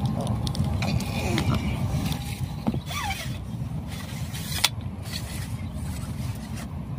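Wind buffeting the microphone, a steady low rumble, with a few sharp ticks and a brief squeak in between.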